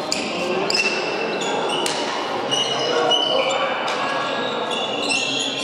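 Rubber pilota ball struck by hand and smacking off the walls and floor of a trinquet during a raspall rally, several sharp hits echoing in the hall, with trainers squeaking on the court floor and spectators' voices.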